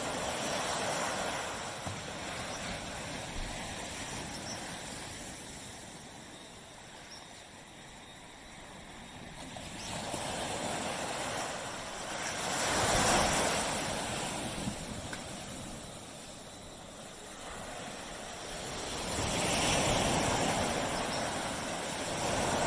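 Surf breaking on a beach: waves wash in one after another, each a rising then fading hiss, the strongest about halfway through.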